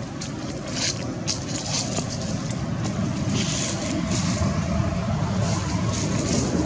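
A steady low rumbling noise with a hiss above it, growing a little louder, with a few short crackles in the first couple of seconds.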